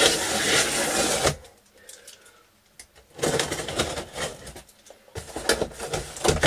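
Packing tape on a large cardboard box being slit with a knife and pulled loose, a scratchy ripping and rustling of tape and cardboard. It comes in two stretches: one lasting about a second, then, after a quieter pause, a second longer stretch with small clicks from about three seconds in.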